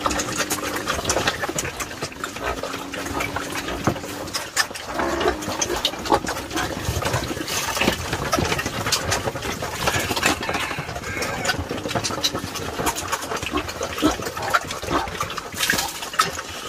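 Pigs grunting among a dense run of quick clicks and knocks. The low grunts come a few times in the first few seconds.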